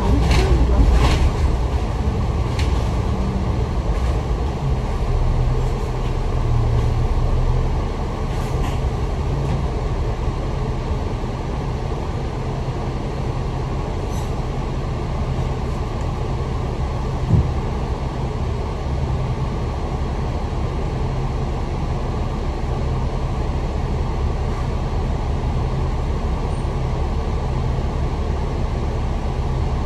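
Inside a moving Citybus double-decker bus: steady engine and road rumble under a loud air-conditioning hiss. There are a few clicks in the first few seconds and a single short knock about 17 seconds in.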